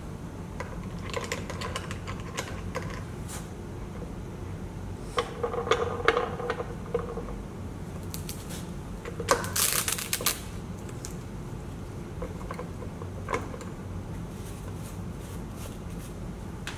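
Fingers handling small objects fixed to a wooden board: scattered clicks and taps, a cluster of them about six seconds in, and a rough scraping rush about ten seconds in.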